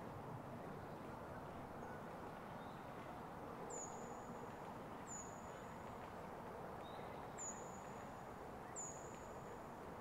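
A small bird gives four high, thin calls, each a quick downward slip into a held whistle about a second long, with a couple of fainter short notes between them. Under the calls runs a steady quiet hush of winter forest ambience.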